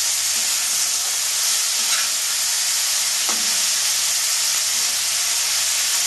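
Salt-and-turmeric-coated prawns sizzling steadily as they fry in hot oil in a wok over high heat, with a spatula stirring them.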